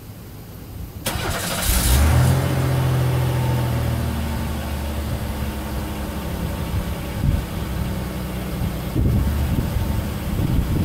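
1995 Buick Century engine starting: a short crank about a second in, the engine catching loud about two seconds in, then settling to a steady idle heard from behind the car at the tailpipe.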